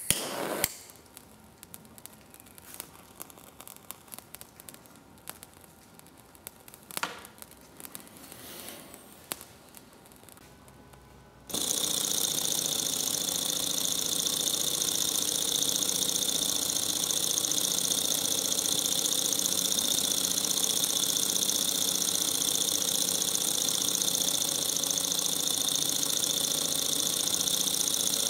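Mini hot-air Stirling engine: a few light clicks and knocks in the first part, then a little before halfway the engine is suddenly heard running, a loud, steady, fast mechanical whirring rattle of its piston and flywheel.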